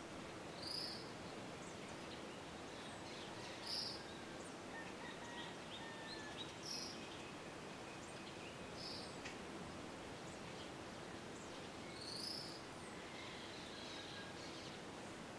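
Orchard oriole singing: a short high note comes about every three seconds, five times, among softer scattered chirps, over a steady background hiss.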